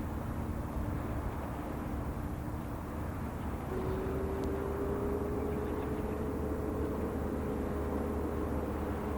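Steady low engine rumble. About four seconds in, a humming tone comes in and rises slightly in pitch.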